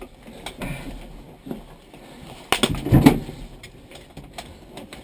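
Scattered knocks and rustles inside a stationary rally car's cabin as the helmeted crew shift about, with a louder clunk about halfway through.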